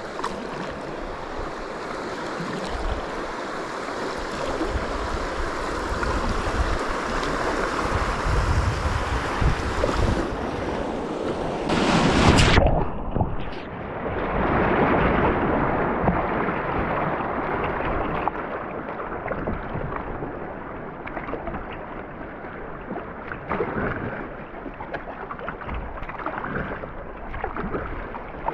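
Wind buffeting the microphone over water lapping around a kayak, swelling and easing in gusts, loudest about twelve seconds in.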